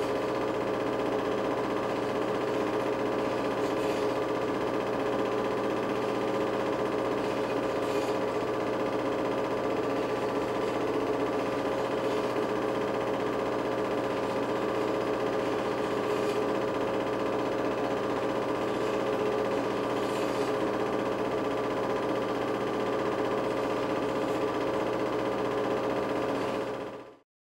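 Film projector running: a steady mechanical whirr and hum with a faint click about every four seconds, stopping abruptly at the end.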